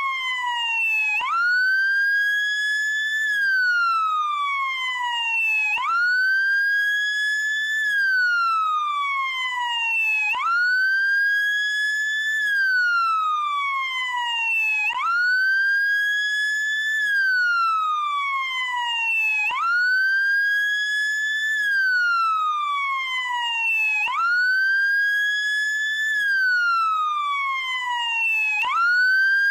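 Wail siren of a SAMU motorcycle ambulance sounding continuously. Each cycle jumps quickly up in pitch, holds briefly, then slides slowly back down, repeating about every four and a half seconds.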